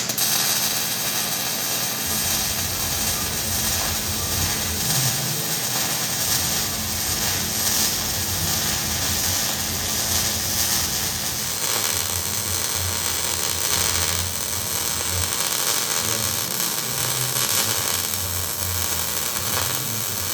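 Electric arc welding: one long continuous bead, a steady crackling hiss that starts and stops abruptly.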